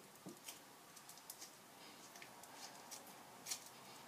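Faint sticky clicks and pops of glue-and-borax slime being stretched and kneaded between the hands, still tacky and not yet stretchy, with one sharper click about three and a half seconds in.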